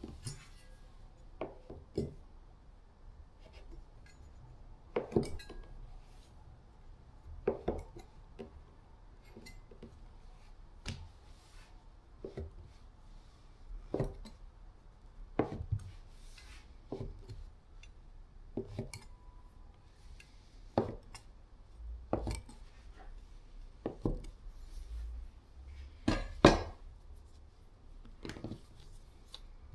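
Wooden rolling pin knocking and clacking on a board while dumpling wrappers are rolled out, in irregular sharp knocks about one every one to two seconds, the loudest a little before the end.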